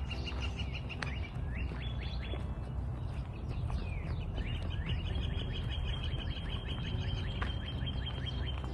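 A songbird singing rapid trills of quick repeated notes on one high pitch: a short trill at the start, a brief one about two seconds in, and a long one from about five seconds in that stops near the end. A low steady rumble lies underneath.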